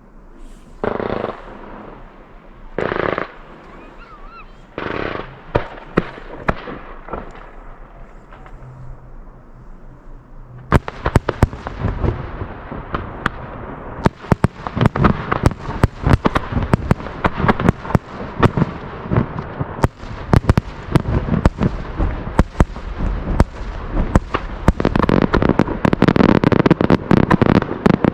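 Aerial fireworks: a few separate booming shell bursts, then from about eleven seconds in a dense rapid-fire barrage of sharp bangs and crackling that grows heavier toward the end.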